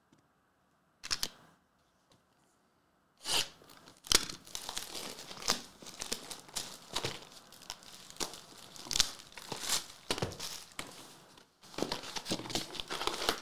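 Plastic shrink-wrap being torn off a Topps Chrome trading-card hobby box and crinkled, then packs and a paper insert rustling as the box is opened. A single sharp click comes about a second in. The dense crackling starts about three seconds in, with one brief pause near the end.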